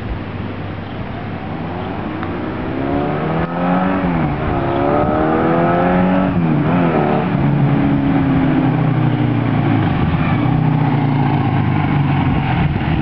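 1979 Kawasaki KZ1000 LTD's air-cooled inline-four running through a Mac 2-into-1 slash-cut exhaust, accelerating. The revs climb twice, each time dropping at a gear change, then settle into a steady cruise from about halfway.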